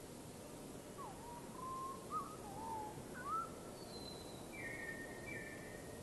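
Bird calling: a string of short whistled notes that swoop up and down, then two higher, flat notes near the end, over a faint steady hiss.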